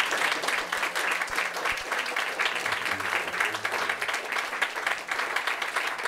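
Audience applauding steadily, many hands clapping at once.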